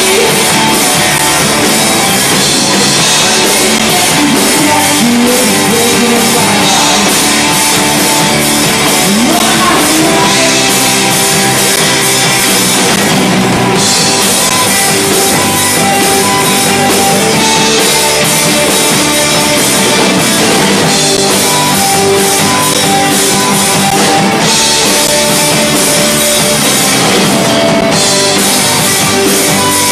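Live rock band playing loud and steady, with acoustic guitar, electric guitar and drum kit.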